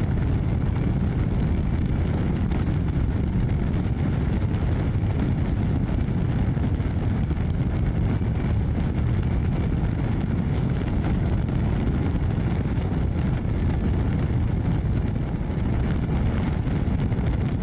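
Police motorcycle at high speed, heard from a camera mounted on the bike: engine and wind rush make one steady low roar with no breaks.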